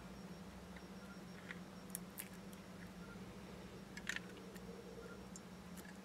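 Faint scattered ticks and light clicks as a hobby knife blade lifts and repositions a thin stencil piece on a plastic model aircraft, over a low steady hum.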